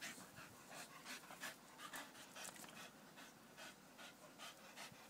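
Staffordshire bull terrier panting, faint, quick and even at about three or four breaths a second; the dog is out of breath from running and play.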